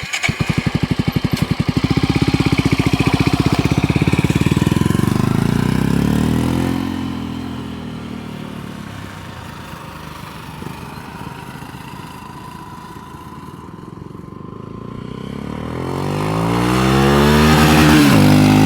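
Honda CB300 single-cylinder motorcycle ridden past with a custom 3-into-1 exhaust, its DB Killer baffle fitted. The exhaust note is loud at first, drops in pitch and fades as the bike moves off about six seconds in, then rises again as it accelerates back, loudest near the end.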